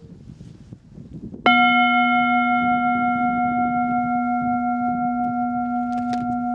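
A singing bowl struck once about a second and a half in. It rings on with a steady low tone and several higher overtones, fading slowly with a gentle wavering. The stroke is the cue for the group to chant.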